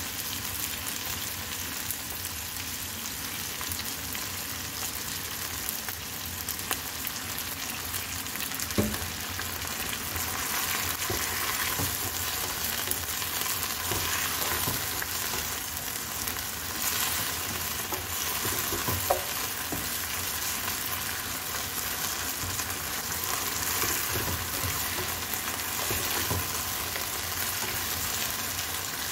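Chicken feet sizzling in a hot non-stick wok while a wooden spatula stirs and scrapes them, with a few sharp knocks of the spatula against the pan, clearest about nine and nineteen seconds in. The sizzling gets a little louder about ten seconds in.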